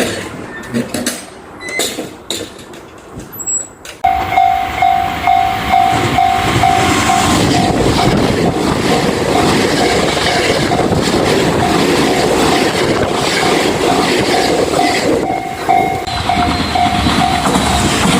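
Japanese level crossing warning bell cutting in abruptly about four seconds in and ringing steadily at about two tones a second, over the rumble and clatter of a passing train.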